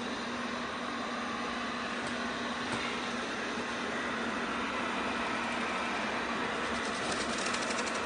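Eufy RoboVac G10 Hybrid robot vacuum running on a tile floor: a steady motor hum and hiss of its suction and brushes, with a fast, even ticking near the end.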